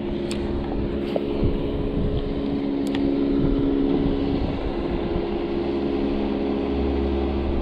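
Motorboat engine running steadily on the lake, a low, even hum with a few fixed tones that holds the whole time.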